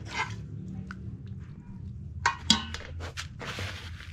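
Food-preparation handling sounds: a steel ladle clinking and knocking against a steel pot and tray, and a brief rustle of dry crumbled bread being worked by hand, over a steady low hum.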